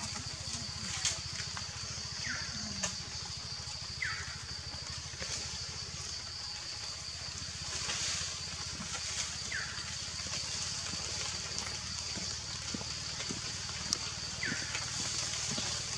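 Outdoor woodland ambience: a steady high hiss over a low hum, with a short chirp repeated every couple of seconds and a few faint clicks.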